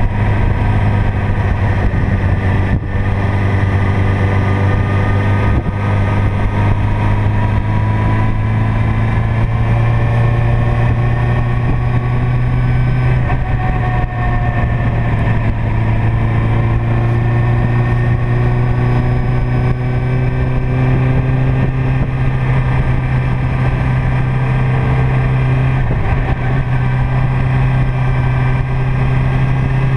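Motorcycle engine running at a steady cruise, its note drifting slowly up and down in pitch with the throttle through the bends, over a continuous rush of wind and road noise.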